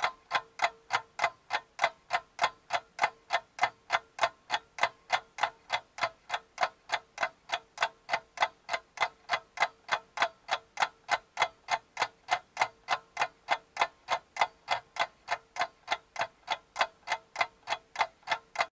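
Clock-like ticking sound effect, an even tick about three times a second with a faint steady hum beneath, cutting off suddenly near the end.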